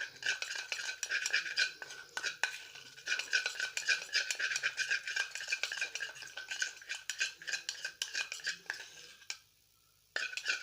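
A utensil stirring quickly around a small container, scraping and clinking steadily as xanthan gum powder is worked into glycerin. The stirring stops for under a second about nine seconds in, then starts again.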